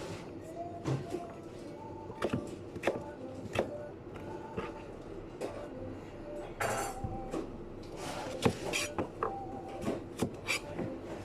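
Kitchen work: scattered clinks and knocks of utensils and dishes, several a second at times, with faint steady tones behind them.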